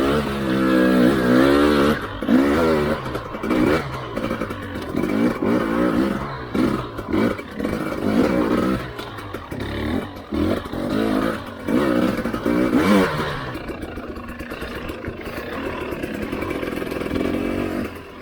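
Husqvarna TE300i two-stroke dirt bike engine revving up and down repeatedly as the throttle is opened and closed on a trail ride, settling to a steadier note for the last few seconds.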